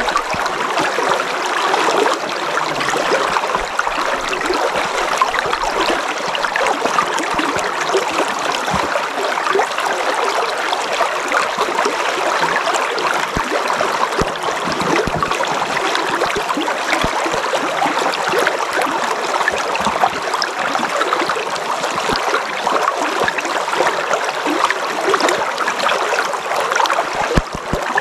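A river flowing: a steady, even rush of running water with a fine, flickering babble.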